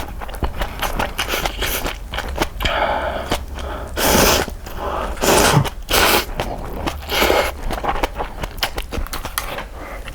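Close-miked eating of instant cup ramen: chewing with many small wet clicks, broken by several short noisy rushes of noodle slurping.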